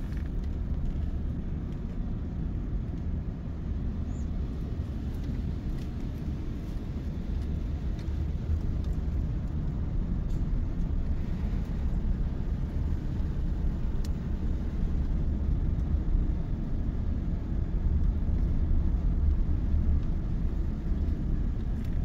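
Car driving on a paved street, heard from inside the cabin: a steady low rumble of engine and tyre noise, growing slightly louder in the second half.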